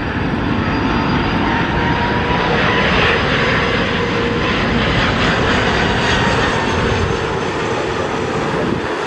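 Airliner engines running loud and steady as the aircraft moves past the airport, a dense rushing noise with a faint whine that falls slowly in pitch.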